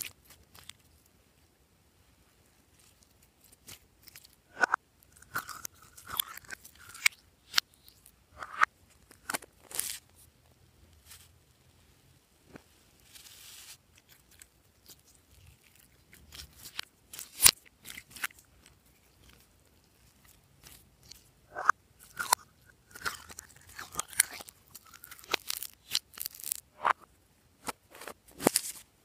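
Glossy glitter slime squeezed and pressed between the fingers, making irregular sticky clicks, pops and squelches in bursts, with a few short squeaks and quiet pauses between handlings.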